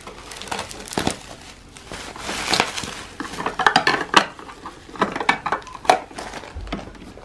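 Bubble wrap rustling and crinkling as it is pulled off a plastic capsule coffee machine, with sharp clicks and knocks as the machine's plastic drip tray is handled. The clicks come thickest in the middle.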